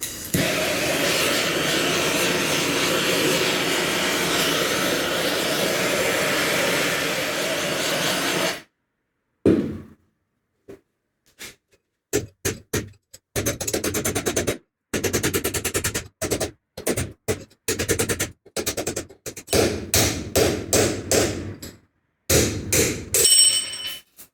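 A steady rushing hiss from a heat source warming the differential case for about eight seconds. It stops abruptly and is followed by long runs of hammer blows on a drift, driving out a seized bearing. Some blows ring out metallically near the end.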